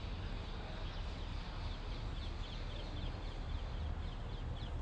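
Many short, high bird chirps repeating a few times a second over a steady background of outdoor noise and low rumble.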